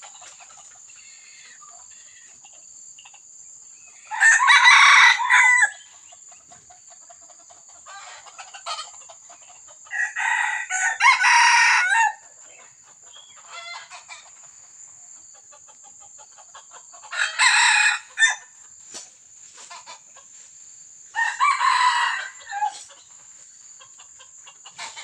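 Red junglefowl cock crowing four times, each crow lasting a second or two, with fainter calls in between, over a steady high-pitched buzz.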